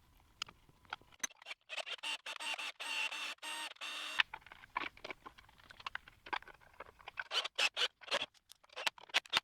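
A 3D-printed plastic mount being handled: a quick run of sharp clicks and scrapes, with a steady whine for about two and a half seconds near the middle.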